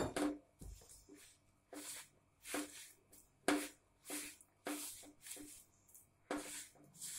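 Hand mixing dry wheat flour with a bathua-spinach paste in a metal bowl: repeated rustling, scraping strokes, about one to two a second, each with a brief low note.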